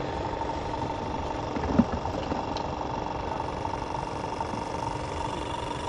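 Aerator motor running with a steady hum. One short knock comes a little under two seconds in.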